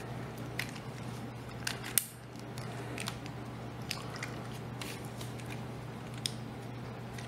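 Plastic clicks and snaps of a Transformers Combiner Wars Dragstrip action figure's joints and panels being turned and folded by hand. A few scattered sharp clicks, the loudest about two seconds in, over a steady low hum.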